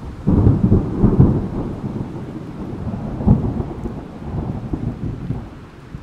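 Thunder in a rainstorm. A deep rumble breaks out about a quarter second in and rolls on, with a sharper crack about three seconds in, then dies away near the end, leaving the steady hiss of rain.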